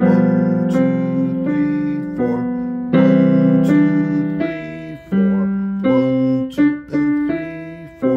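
Digital piano played with both hands: held chords over a moving bass, changing about every three-quarters of a second, with the loudest chords struck at the start and about three seconds in.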